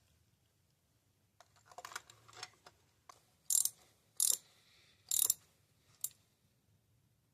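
Hand tools and removed spark plugs being handled: a stretch of light rattling and clicking, then three short sharp rasps about a second apart and a fainter one after.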